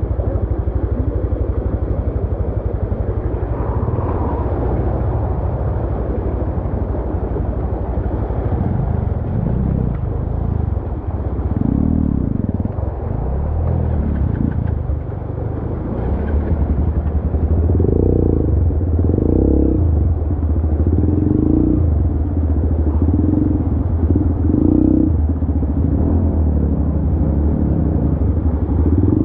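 Dirt bike engine running as the bike rides up a shallow, muddy stream bed. In the second half the revs surge and drop over and over as the throttle is worked.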